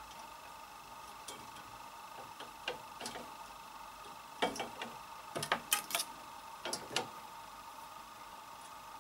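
Scattered light clicks and taps of hands working at a Silver Reed SK 280 double-bed knitting machine's metal needle beds, loudest in a quick cluster about halfway through, over a faint steady hum.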